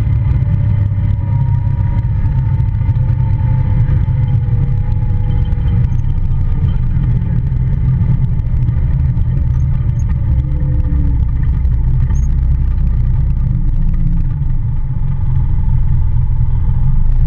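Polaris Ranger UTV running under way, a heavy steady rumble with a fainter whine that slowly falls in pitch over the first ten seconds or so.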